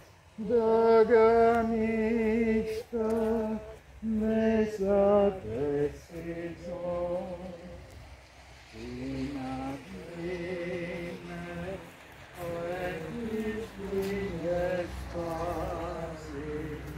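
Slow singing of a chant-like hymn, with long held notes and short pauses between phrases.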